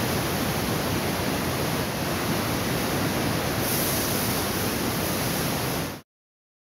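High-pressure water jet spraying and rinsing down the concrete walls of a reservoir tank: a steady loud hiss and rush of water that cuts off suddenly near the end.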